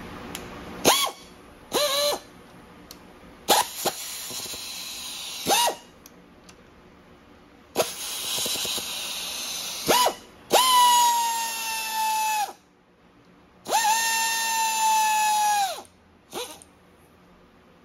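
A cordless power tool's electric motor whining in about seven runs, some brief and some a couple of seconds long. Each run rises in pitch as the motor spins up and falls as it stops. The tool is undoing the connecting-rod cap fasteners during an engine teardown.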